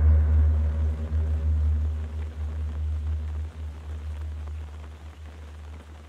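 A deep, gong-like low note in the soundtrack music rings on and slowly dies away, over a faint, even hiss.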